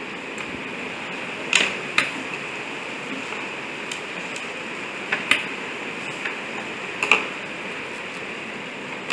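A few scattered sharp clicks and taps as the parts of a small robot car and its AA battery holder are handled on a table, over a steady hiss.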